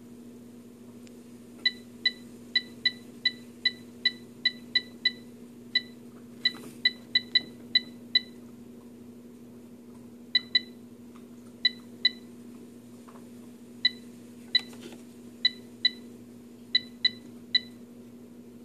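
AeroGarden ULTRA LED control panel beeping: a run of about twenty quick, short electronic beeps, then scattered single and paired beeps after a short pause. A steady low hum runs underneath. The beeping comes as the faulty controller moves through its menu by itself.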